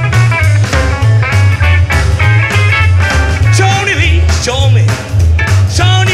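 Live band playing an instrumental break: an upright double bass plucks a steady, driving line under drums while a guitar plays a lead with bent notes, the bends coming more strongly in the second half.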